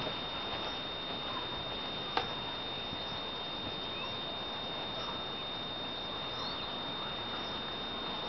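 A single high-heeled footstep taps about two seconds in, then there is only a quiet outdoor hiss, with a faint steady high whine and a few faint short chirps.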